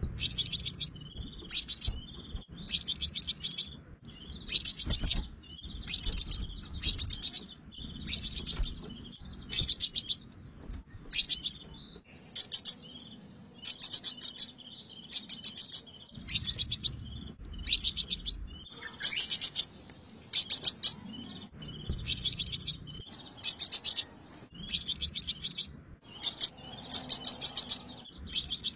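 Sunbird song: rapid, high-pitched twittering trills in short phrases, repeated again and again with brief pauses between them, the kind of call used as a lure to trap sunbirds.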